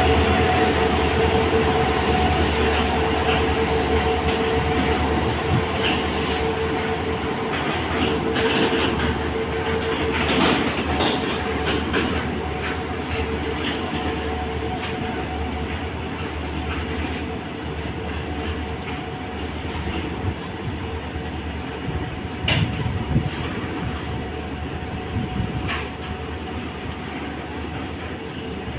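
Freight train of BTPN bogie tank wagons rolling past, a continuous rumble of steel wheels on the rails that slowly grows quieter, with scattered sharp wheel clacks. A steady whine fades away over the first dozen seconds as the twin EMD diesel locomotives draw away.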